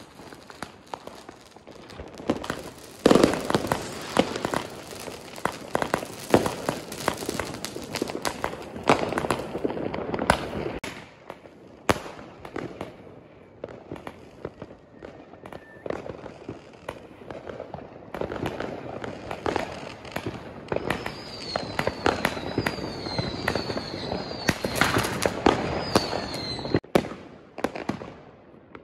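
Fireworks going off: a dense run of bangs, cracks and crackling, loudest about three seconds in. Later comes a series of short whistles, each falling in pitch.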